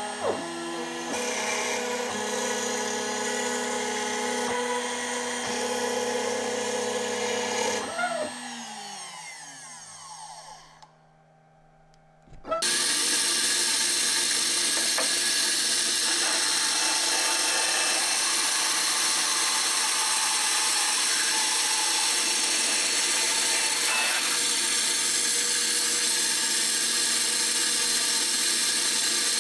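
CNC router spindle with a tapered ballnose bit running steadily, then spinning down with a falling whine about eight seconds in. After a brief near-silent gap, a bandsaw comes in abruptly and runs steadily to the end.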